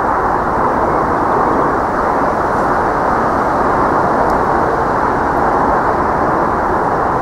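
Class 37 diesel locomotive's English Electric V12 engine working hard while the train is still out of sight: a steady, loud noise with no clear beat.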